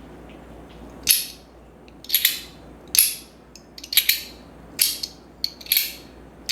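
Compoform astronaut slider coin being worked by hand, its sliding halves clicking into place about once a second, each a short, sharp click with a brief rasp.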